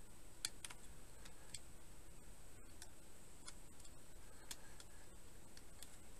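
Irregular small plastic clicks and ticks of a fan's LED cable and plug being handled and wiggled at its connector inside a running PC case, the sharpest about half a second in, over a faint steady high whine.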